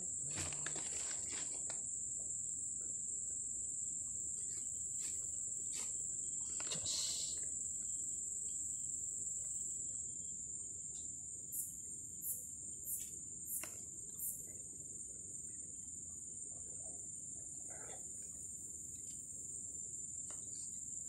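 A steady high-pitched drone of insects, such as crickets or cicadas, in tropical forest undergrowth. Light rustling at the start, and five short sharp ticks in a quick row a little past the middle.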